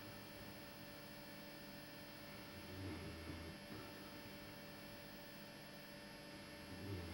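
Faint snoring: low snores about every four seconds, one around three seconds in and another near the end, over a steady electrical hum.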